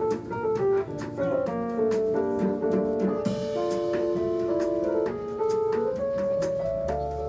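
Background music: jazz with a steady drum-kit beat and piano.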